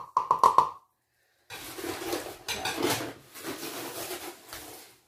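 Electric oven's preheat alert: about five quick, evenly spaced beeps in the first second, signalling that the oven has reached temperature. After a short pause comes about three and a half seconds of quieter, uneven muffled noise.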